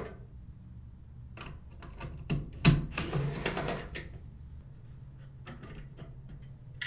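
Cordless drill-driver backing a Phillips screw out of a trolling motor's bracket side plate, running for about a second near the middle. Light clicks and taps of the bit and the plastic plate come before and after it.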